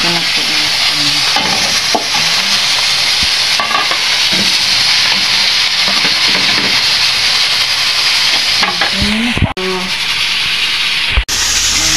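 Pot of meat and vegetables sizzling steadily on a gas stove as string beans and pechay are stirred in. The hiss drops out briefly twice near the end.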